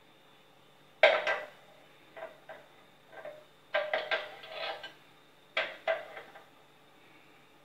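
Steel kitchen vessels and utensils being handled on a gas stovetop: a string of sharp metallic knocks and clinks, some singly and some in quick clusters.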